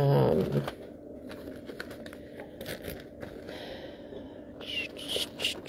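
Handling noise: light crinkling and scattered small clicks as jewelry and its wrapping are handled close to the microphone.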